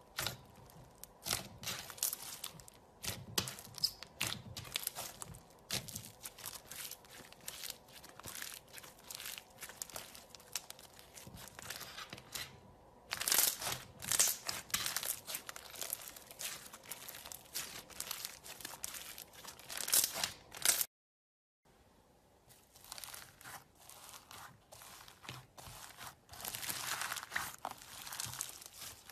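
Hands kneading, pressing and stretching slime, a steady run of small irregular crackles and pops. The sound cuts out briefly about two-thirds of the way through, then bead-filled slime is squeezed with denser crackling near the end.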